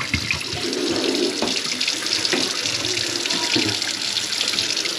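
Kitchen faucet running water steadily into the sink, with a few light knocks in the first half second.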